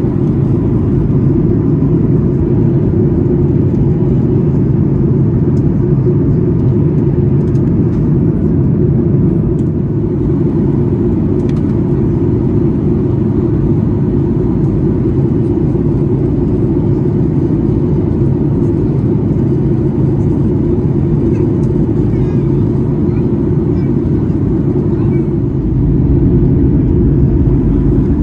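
Steady in-flight cabin noise of a Boeing 737-800, the engines and rushing air blending into a deep, even drone, which grows slightly heavier in the low end near the end.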